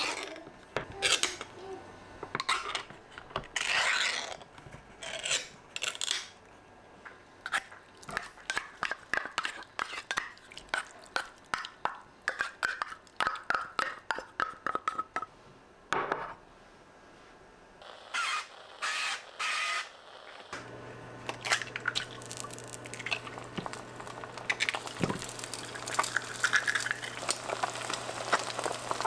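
Kitchen work: dishes, bowls and utensils clinking and knocking in quick, irregular strokes. About two-thirds of the way through, a steady low hum comes on beneath them.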